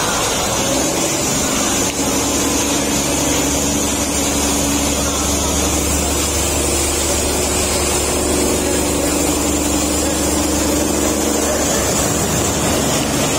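Electric-motor-driven corn-stalk chopper running steadily, its rotor shredding corn stalks into fine feed. A constant loud whirring with a steady low hum.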